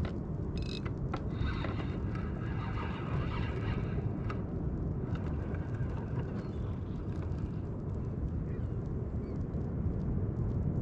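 Steady low rumble of wind buffeting the microphone on open water, with a few sharp clicks in the first second or so.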